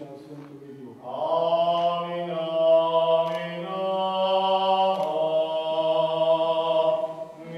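Orthodox church chant: a steady low drone held under a melody of long, drawn-out notes that comes in about a second in and drops off near the end.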